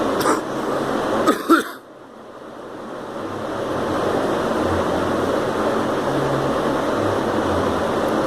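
A girl coughing, about three short coughs in the first two seconds, over steady background noise.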